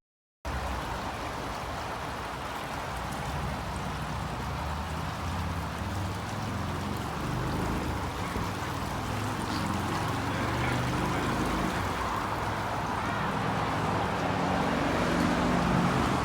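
Steady rush of flowing water, growing slightly louder, with an uneven low rumble underneath.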